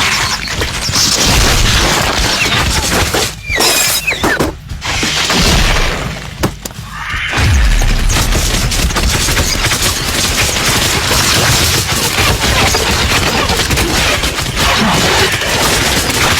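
Loud film action sound effects: dense crashing and smashing with deep booming rumbles, broken by brief gaps about three and a half, four and a half and six and a half seconds in.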